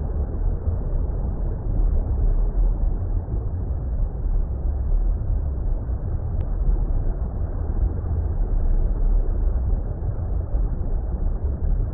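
Steady, deep water rumble like an underwater ambience. It is an even, unbroken noise, heaviest in the bass, with nothing in the high end.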